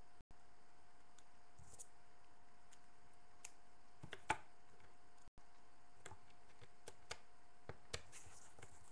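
Lego Technic plastic pieces clicking and tapping as they are handled, pushed together and set down on a wooden table: scattered sharp clicks, the loudest about four seconds in, over a faint steady hum.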